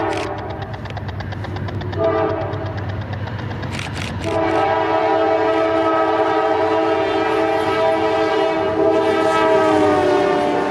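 Norfolk Southern diesel freight locomotive's multi-chime air horn sounding for a grade crossing. The end of one blast is followed by a short blast about two seconds in, then a long blast from about four seconds that drops slightly in pitch as the locomotive passes near the end, over the low rumble of the train.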